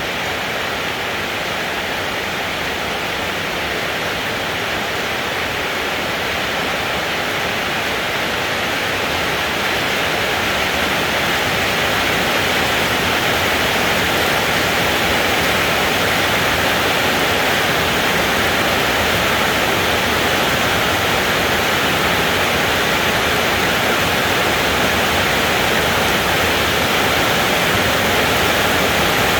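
Steady heavy rainfall, an even hiss of countless drops with no thunder, growing slightly louder over the first ten seconds and then holding steady.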